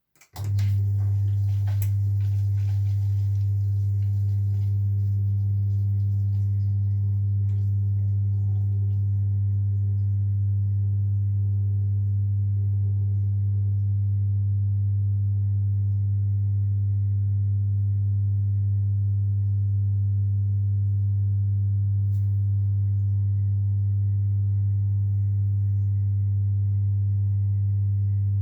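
Zanker EFX 4875 washing machine on its final spin, giving a loud, steady low hum that cuts in abruptly and holds an even pitch.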